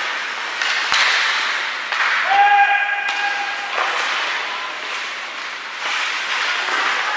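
Ice hockey game play in a rink: sticks and puck clacking and a thud about a second in, over steady rink noise, with a brief shout about two and a half seconds in.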